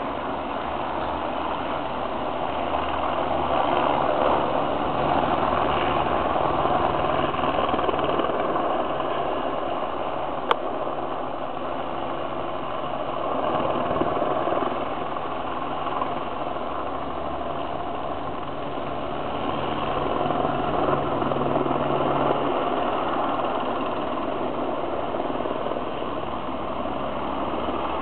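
Diesel freight locomotives running at a distance: a steady low engine rumble under a wide hiss, with a single sharp click about ten seconds in.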